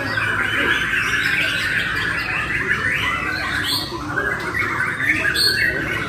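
Many caged white-rumped shamas (murai batu) singing at once against each other, a loud, dense and unbroken tangle of overlapping song.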